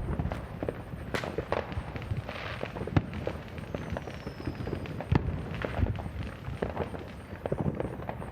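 Fireworks and firecrackers going off all around: a steady scatter of pops and crackles with sharper bangs about a second, three seconds and five seconds in. A faint whistle falls in pitch just before the middle.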